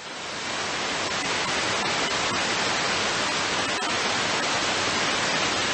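Steady radio static hiss from an airband scanner receiving ATC traffic, with no voice in it. It swells up over about the first second, then holds steady.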